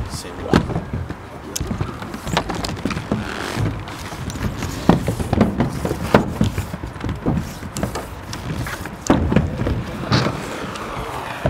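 Inline skates clicking and knocking on concrete at irregular intervals, over a steady low rumble.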